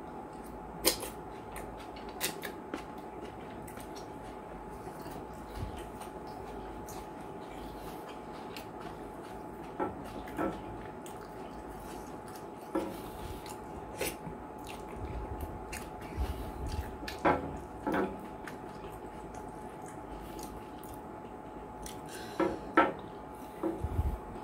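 Eating by hand close to the microphone: wet smacks and clicks of chewing and of fingers working through slimy okro soup and banku, scattered unevenly, over a faint steady hum.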